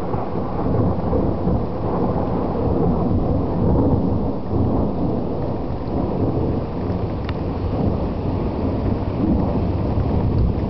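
Wind buffeting the microphone: a steady low rumble that flickers rapidly throughout.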